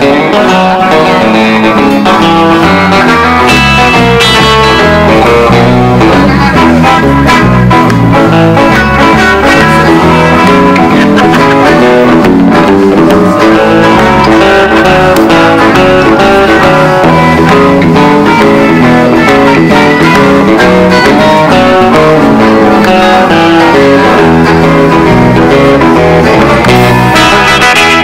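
Country band playing live on electric guitars and an electric bass, a steady, full-band tune.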